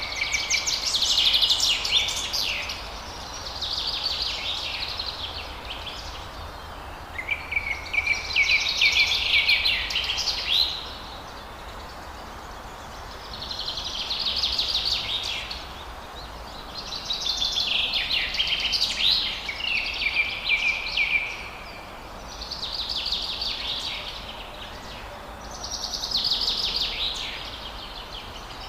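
Forest birds singing: about seven loud phrases of rapid high trills, each one to four seconds long, several starting on a short steady whistle, repeated every few seconds over a steady low background hum.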